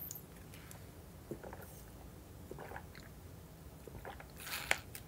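Faint mouth and sipping sounds from drinking a Capri Sun pouch through its straw, with small scattered clicks, then a short noisy slurp with sharp clicks about four and a half seconds in.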